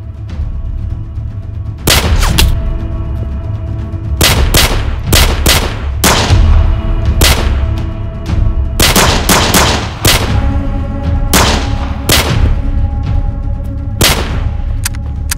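A gunfight: about twenty gunshots in irregular clusters, several in quick succession, each with a short ringing tail, over dramatic film music.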